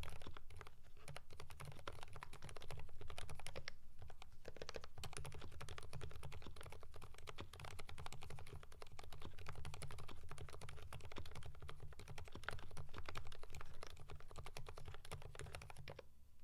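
Typing on a Keychron V5 mechanical keyboard with lubed Kailh Fried Egg silent switches and GMK Norse keycaps: a dense, continuous stream of keystrokes, with a brief lull about four seconds in, stopping just before the end.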